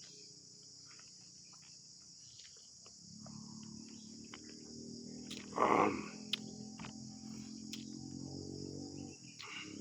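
Crickets or other insects trilling in a steady high chorus. A low, even hum rises underneath from about three seconds in, and a short loud noise breaks in about six seconds in, with a few small clicks scattered through.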